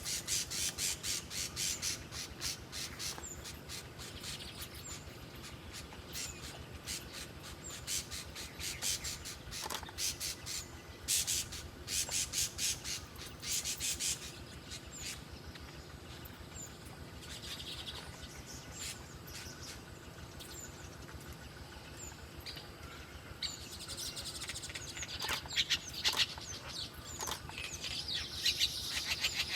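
Small songbirds calling: bursts of rapid, sharp, high-pitched chattering notes, with single short chirps in between.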